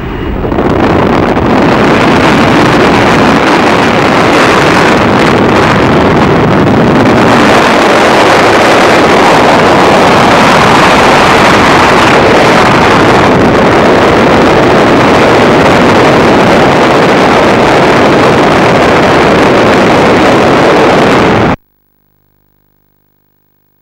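Loud, steady rush of wind over the microphone in the slipstream at the open door of a small propeller jump plane, mixed with the plane's engine and propeller noise. It cuts off suddenly near the end.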